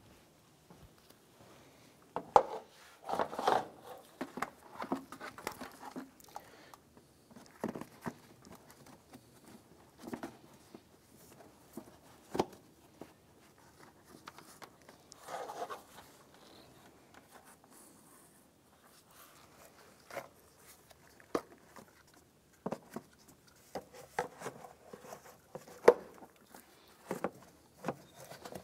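Plastic air box and intake duct being handled and fitted into place, giving scattered clicks, knocks and rustling, with sharp snaps about two seconds in and near the end.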